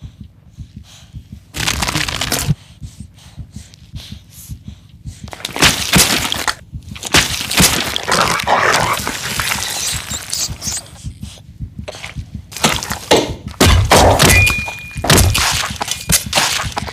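Foley sound effects: a quick, irregular run of sharp cracks, breaks and thuds, after a quieter first second and a half.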